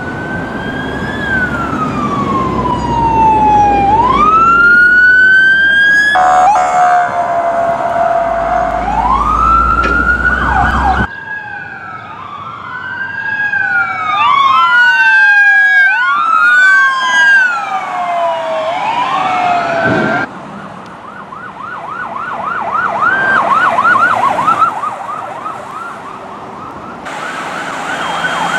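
Electronic sirens of responding police cars. They wail in long rising and falling sweeps, with two sirens wailing out of step in the middle, and switch to a fast yelp later on. The sound breaks off and changes abruptly several times.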